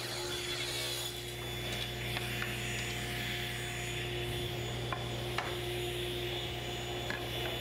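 Table saw running while a hardwood rail is ripped to width along the fence, with a couple of light knocks near the middle as the cut strips are handled.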